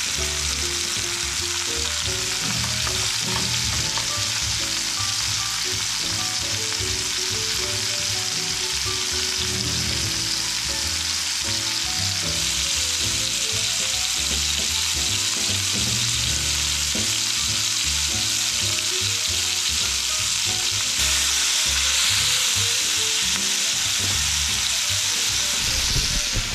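Chuck roast searing in a hot pan, sizzling steadily throughout.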